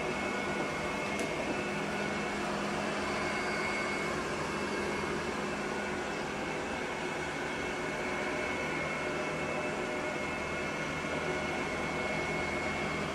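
Steady machine hum with a faint high whine held throughout, and no other clear events.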